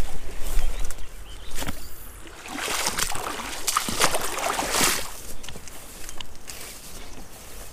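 Footsteps swishing through tall wet grass on a stream bank, loudest between about two and a half and five seconds in. Wind rumbles on the microphone at the start and dies away about a second in.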